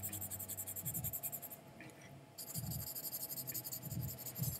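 Red coloured pencil scratching on paper in quick back-and-forth shading strokes. It stops briefly about a third of the way in, then resumes. A few soft low thumps come in between.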